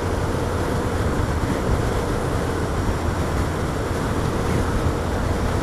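Motorcycles cruising at a steady speed of about 40 mph: a low engine drone under a constant rush of wind and road noise on a helmet-mounted microphone.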